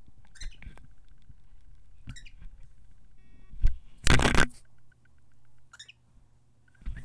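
Cockatiel giving short chirps three times, with a loud, brief noisy rustle about four seconds in.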